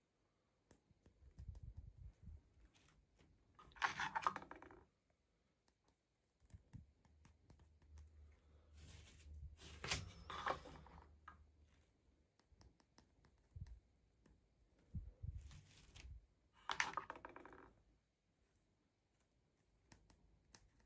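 Toy packaging being handled and opened by hand: three short bursts of crinkling and tearing, with soft knocks and taps between them.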